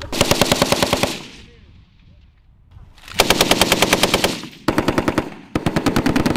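M240 7.62 mm belt-fed machine gun firing four bursts of rapid automatic fire, each about a second long, with a gap of about two seconds after the first burst and short pauses between the others.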